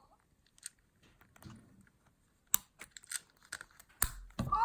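Scattered clicks and taps of hands handling a Hatchimals toy's hard plastic body and switches, with a louder knock about four seconds in.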